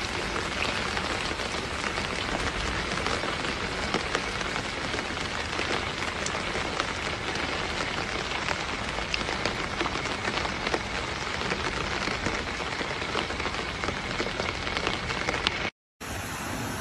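Heavy rain falling: a steady hiss of rain with many small drop impacts. It breaks off abruptly near the end.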